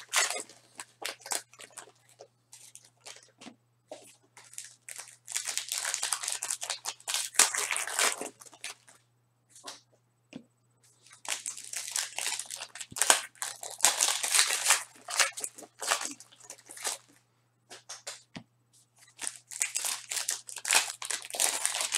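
Panini Prizm basketball card packs being torn open by hand, their foil wrappers ripping and crinkling in bursts lasting a few seconds each, with small clicks and taps in the quieter gaps between.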